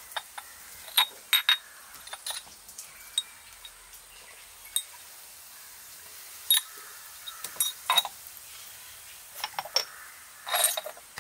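Glass spice jars and their glass lids clinking and a spoon knocking as the jars are opened, handled and set down: a scatter of sharp, briefly ringing clinks, with a longer scraping rattle near the end.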